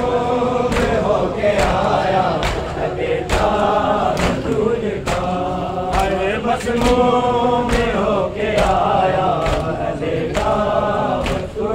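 Crowd of Shia mourners chanting a noha lament in unison. Their hands slap their chests together in a steady beat (matam), a little faster than once a second.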